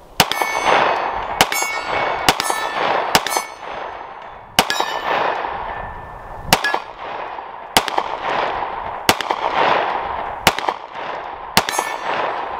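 A SIG P320 M18 9mm pistol fired ten times at a steady pace, roughly one shot every second or so, each shot trailing off in a long echo. A short metallic ring follows some shots, the sound of hits on steel targets.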